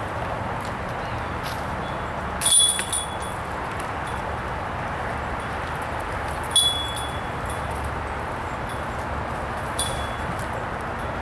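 Disc golf discs striking the chains of a metal basket three times, each a sharp metallic clink with a brief ringing tail, the first the loudest, over a steady outdoor background hiss.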